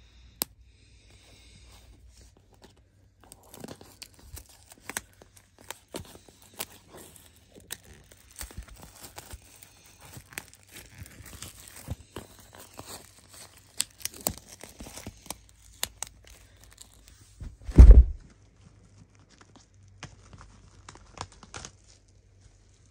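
Clear plastic shrink wrap crinkling and tearing as it is peeled off a CD case, in a long run of crackly rustles. Late on comes one loud, low thump.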